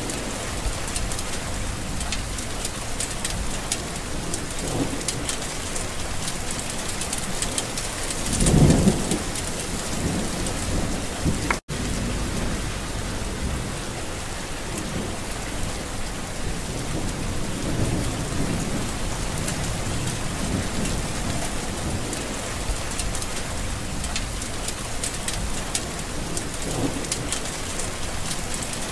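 Steady rain falling in a windy storm. A louder low swell rises and fades about nine seconds in, and the sound cuts out for an instant about twelve seconds in.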